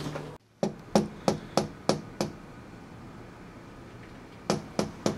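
Knocking on an apartment door: a quick run of six knocks at about three a second, then, after a pause of about two seconds, a second run of knocks near the end.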